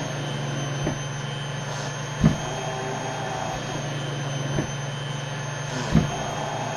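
Mechanical cough assist machine (insufflation–exsufflation device) cycling through a treatment round. Its blower gives a steady hum, and a short thump comes every one to two seconds, in a pattern that repeats about every four seconds as it switches between pushing air in, pulling it out and pausing.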